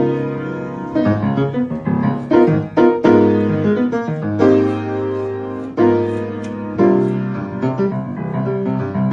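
Piano playing chords and melody notes, each struck and left to ring, with no singing.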